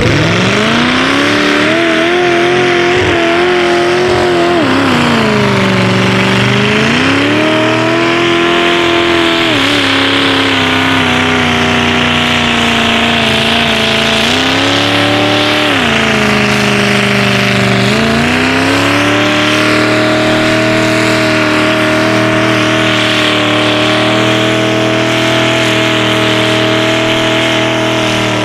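Mud bog truck's engine run hard through deep mud, winding up quickly at the start. Its revs sag and climb back several times under the load, then hold high and steady for the last several seconds.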